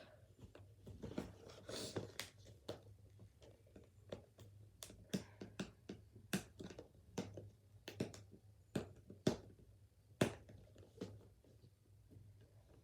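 Faint handling of a taped toy package: a scratchy rustle of tape about a second in, then irregular sharp clicks and taps of plastic and cardboard.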